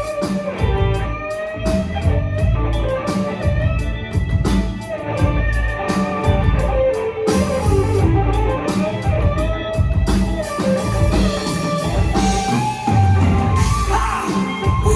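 Progressive rock instrumental passage: a guitar carries a melodic line over bass and drums, with no singing.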